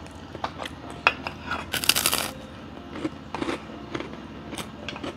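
Eating sounds at a meal: scattered light clicks and taps of cutlery on a plate and chewing, with one short, louder noisy crunch about two seconds in.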